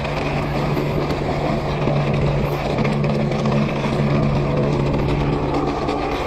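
Mountain bike rolling fast downhill over loose rock and gravel: a steady rushing noise of tyres and wind on the camera microphone, with a steady low hum underneath.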